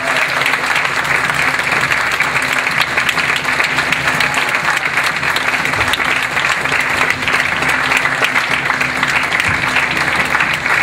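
Theatre audience applauding steadily, dense sustained clapping throughout.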